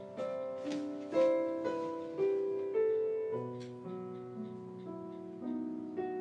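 Background music: a slow piano melody, single notes struck about twice a second and left to ring.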